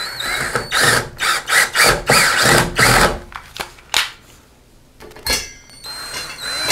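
Cordless drill-driver driving screws through a grab bar's mounting flange into wall anchors in a tiled wall, run in short uneven trigger bursts. It is followed by a few clicks and a quieter pause, then a steady motor whine near the end as the next screw is started.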